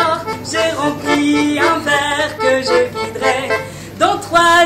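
Piano accordion playing a song's melody, with a woman singing over it.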